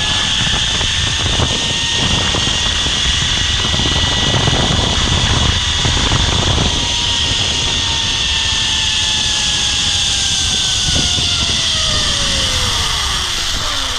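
Zipline trolley pulleys running along the steel cable: a steady high whine over a loud rushing hiss, with wind rumbling on the microphone. Near the end the whine drops steeply in pitch as the trolley slows on reaching the landing platform.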